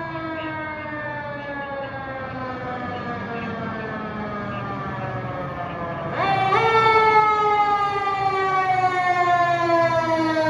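Fire engine's mechanical Q siren winding slowly down in pitch, then wound sharply back up about six seconds in, louder as the engine approaches, and coasting down again.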